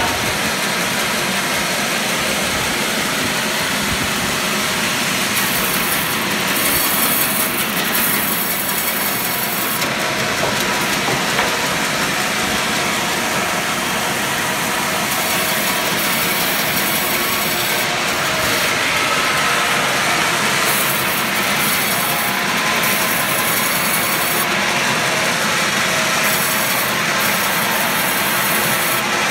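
36-inch vertical bandsaw mill running, its blade sawing through rubberwood logs: a steady, even machine noise with the hiss of the cut.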